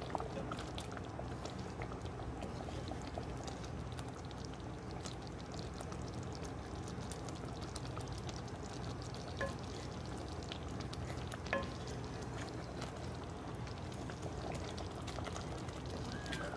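Thick tomato gravy simmering and bubbling in a cast iron kadai over a gas flame, worked with a wooden ladle, over a steady low hum. There are two brief louder pops, at about nine and eleven and a half seconds in.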